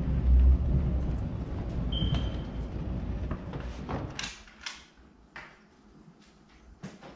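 A low rumbling noise that cuts off abruptly about four seconds in, followed by a handful of sharp clicks and knocks as an apartment door is opened and handled.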